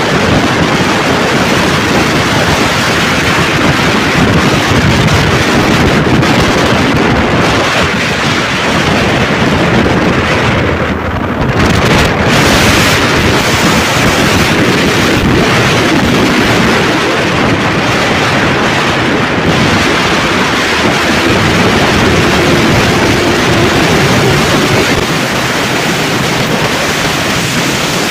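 Loud, steady wind rushing over the microphone of a motorcycle moving at road speed, dipping briefly a little after ten seconds in.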